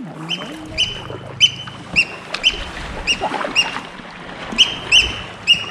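Bird calls: a rapid series of short, high piping notes, about two a second, over faint water and paddling noise.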